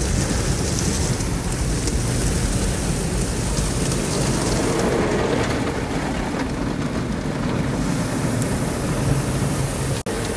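Automatic car wash heard from inside the car: water spraying and wash strips beating over the windshield and body, a steady rushing noise like heavy rain. It cuts out briefly near the end.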